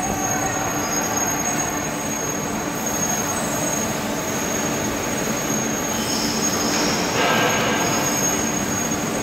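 Hydraulic mold flipper running under power, a steady machine noise with a constant low hum and a thin high whine as its turning body tilts. A brief high squeal comes about six seconds in, and the noise swells about a second later.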